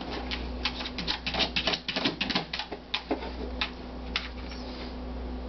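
A dog's claws clicking and scratching in a quick, irregular run of taps that thins out and stops about four seconds in.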